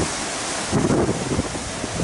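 Wind buffeting the microphone over a steady hiss of small surf washing onto a beach, the gusts picking up less than a second in.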